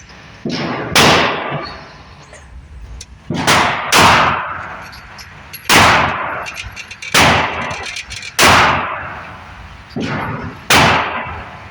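Walther PPQ 9mm pistol firing, mostly in quick pairs about half a second apart with a few single shots, around ten shots in all. Each shot is followed by a ringing echo that fades over a second or so.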